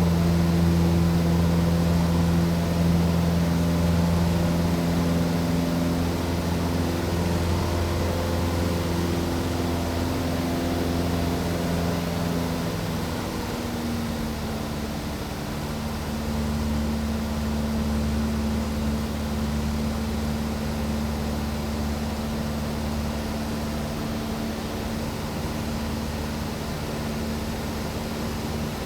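Aircraft in steady flight: a constant engine drone with a steady hum over a rushing noise bed, its tones shifting slightly about halfway through.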